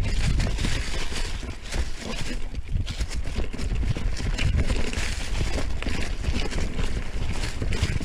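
Mountain bike riding downhill over a rocky, leaf-covered trail: tyres crunching over leaves and stones and the bike rattling over the bumps, with wind rumbling on the microphone.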